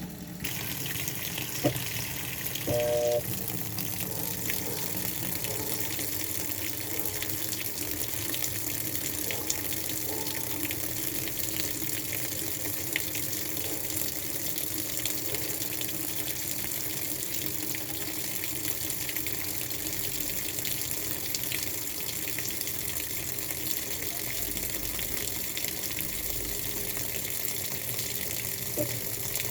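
Water running steadily, a constant rushing hiss that starts about half a second in. A brief tone sounds about three seconds in.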